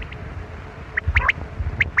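Quail calling: short, sharp whistled notes in quick groups of about three, one group about a second in and another near the end, over low wind rumble on the microphone.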